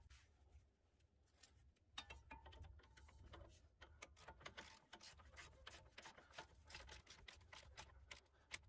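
Faint rapid clicking of a ratchet wrench turning a control arm bolt, starting about two seconds in and going on in short runs.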